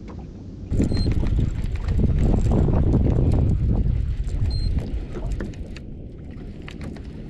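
Loud rumbling wind and handling noise on a body-worn camera's microphone, starting suddenly about a second in and easing off after about five seconds, with scattered light clicks throughout.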